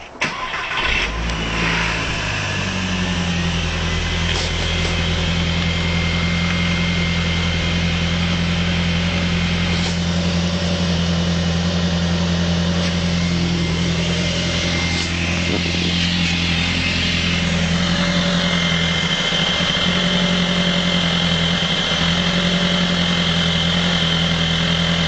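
An engine starts about half a second in, settles within a couple of seconds and then runs at a steady idle.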